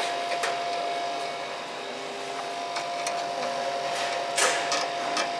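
Steady hum with one constant tone from a powered-up CO2 laser cutting machine and its running equipment. A few light clicks of handling on the machine, and a short scrape about four and a half seconds in.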